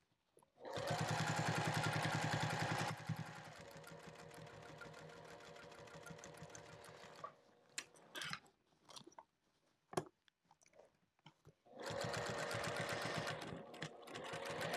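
Sewing machine stitching through bulky layers of a fabric bag: a fast run of stitches, then slower, quieter stitching for a few seconds. It stops for several seconds with a few sharp clicks, and starts stitching again near the end.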